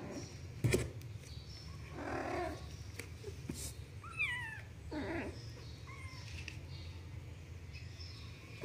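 Young kittens mewing: a thin, wavering mew that falls in pitch about four seconds in and a short faint one near six seconds. A sharp knock just under a second in is the loudest sound, with brief scuffling noises around two and five seconds.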